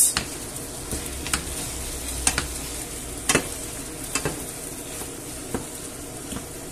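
Two wooden spatulas stirring rice and sausages through a sizzling tomato sauce in a frying pan. The wood knocks against the pan now and then, about once a second, over a steady sizzle.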